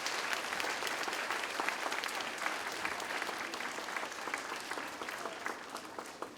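School assembly audience applauding, many people clapping steadily, thinning out to a few scattered claps near the end.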